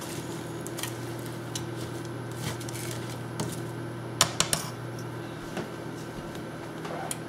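Spoon stirring vegetables in a nonstick frying pan: light scrapes and clicks against the pan, with a couple of sharper knocks a little after four seconds in, over a steady low hum.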